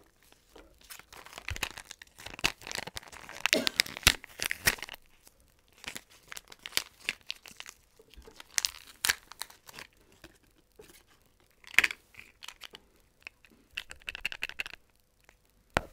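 Small plastic wrapper of a Mini Brands surprise item being torn open and crinkled by hand. It crackles steadily for a few seconds, then comes in scattered crackles and rustles, with one sharp crackle near the end.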